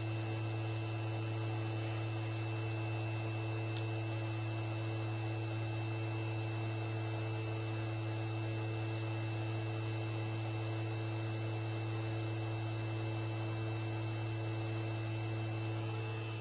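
A 110 VDC CNC spindle motor running unloaded at a steady speed, switched on through a 24 V relay: a steady hum with fainter higher tones above it. A brief click about four seconds in.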